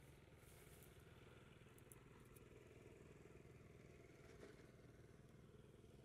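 Near silence, with only a faint steady low hum in the background.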